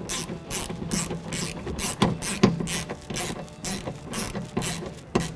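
Socket ratchet with a 10mm socket clicking in a steady rhythm, about three to four clicks a second, as it drives in a door handle mounting screw.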